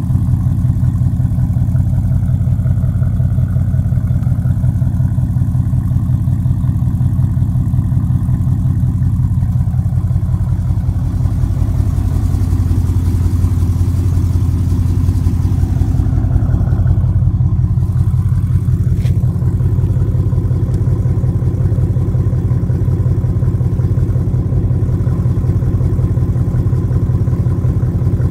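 Ford Mustang GT California Special's 5.0-litre Coyote V8 idling steadily through a catback exhaust with an X-pipe and no catalytic converters, a low, even exhaust note from the twin tailpipes.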